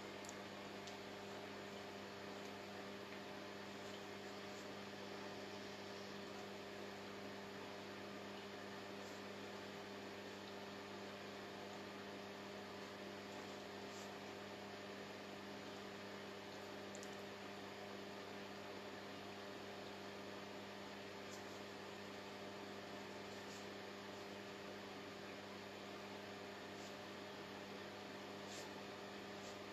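Steady low electrical mains hum with a faint hiss, picked up by the recording, with a few faint scattered ticks.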